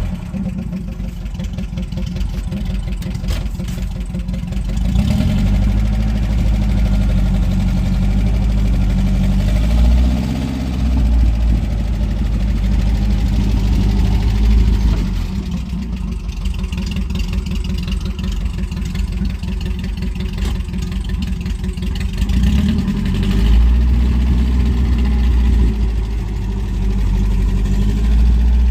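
UAZ Bukhanka van's engine running steadily, its speed rising and falling a few times.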